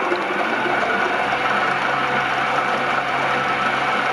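Rock-cutting saw running steadily with its water coolant flowing: a constant machine hum with a few held tones over a hiss.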